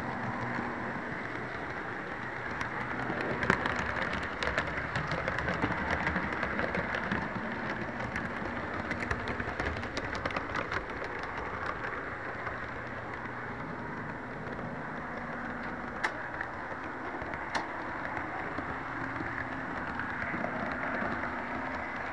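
HO-scale Santa Fe model train running along its track, heard from a camera riding on it: a steady rumble of motor and wheels, with a stretch of rapid clicking over the rails and later two single sharp clicks.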